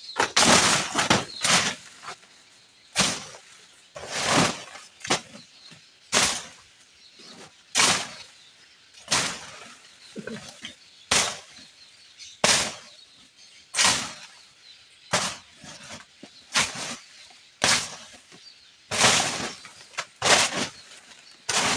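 Hand-swung clearing blade slashing through brush and old banana growth: short swishing chops repeating about once every second or so.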